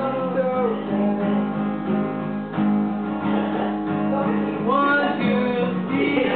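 Acoustic guitar strummed, with held chords and a voice singing over it.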